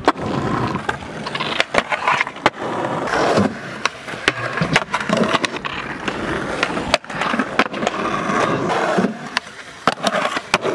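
Skateboard wheels rolling on concrete, broken by many sharp clacks of tail pops and board landings. Near the end the trucks grind along a concrete ledge.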